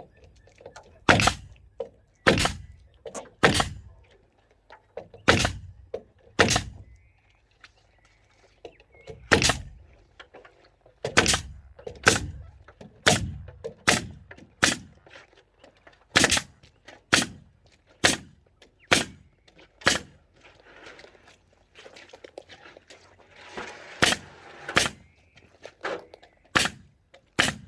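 Heavy hammer blows, around twenty at irregular intervals of about a second with short pauses, each a sharp knock with a dull thud behind it.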